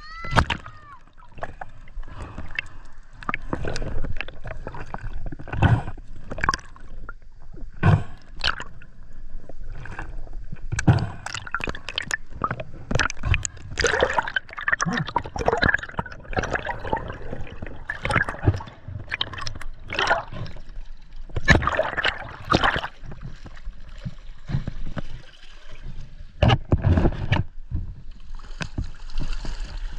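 Water sloshing and gurgling, broken by many irregular clicks and knocks, with a brighter hiss of moving water near the end.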